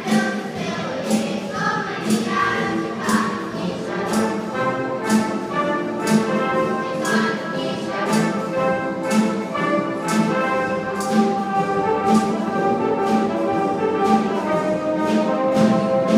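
Live wind band of brass, woodwinds and percussion playing an instrumental passage: held chords over a steady beat of about two strikes a second.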